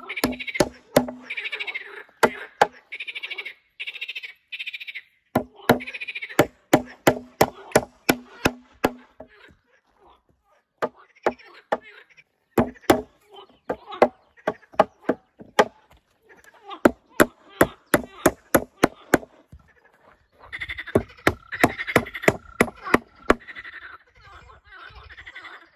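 Hammer driving nails through a wooden batten into planks, sharp strikes in quick runs of about two to three a second with short pauses between runs. Frogs croak in a chorus behind the hammering, fading out for a few seconds in the middle.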